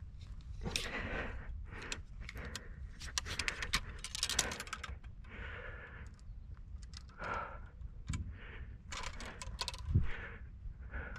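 Footsteps on dry grass and dirt, with a jangling rattle of carried gear as the walker moves.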